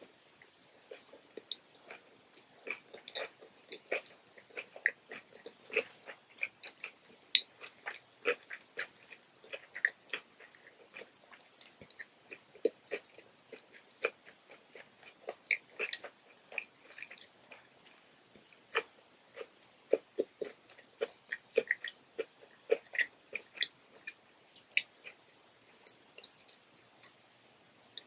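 Close-miked chewing of a cucumber roll: wet, crisp mouth sounds, a steady stream of short crunches and clicks.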